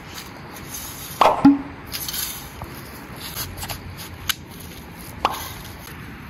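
Shovel digging into grassy soil: a loud double thud as the blade is driven in about a second in, then lighter scrapes and clicks of the blade in the earth.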